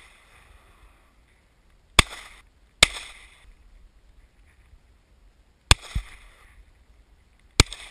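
Four gunshots: two under a second apart about two seconds in, then two more about two seconds apart near the end, each with a short echoing tail. A duller knock comes just after the third shot.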